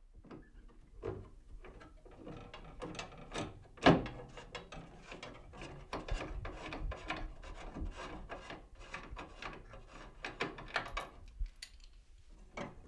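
Miter saw spindle bolt being loosened and backed out with a half-inch wrench, turned clockwise because it is a left-hand thread: a run of small metallic clicks and scraping, with one louder click about four seconds in.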